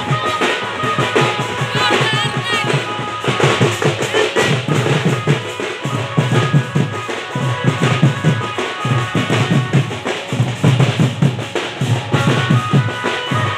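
Band party music: drums and a bass drum beating a fast dance rhythm, with a melody instrument holding steady notes above them.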